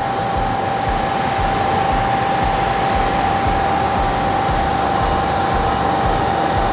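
Steady mechanical whirr of workshop machinery, with a constant high-pitched whine running through it.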